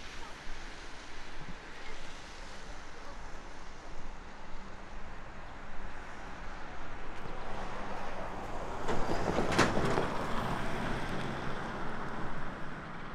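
Outdoor traffic noise with wind on the microphone; a vehicle passes close by, swelling from about seven seconds in and easing after eleven, with a sharp knock near its loudest point.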